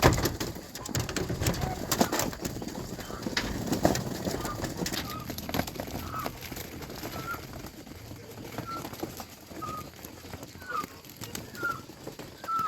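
Farm poultry giving short, soft calls about once a second over a busy clatter of clicks and rustling.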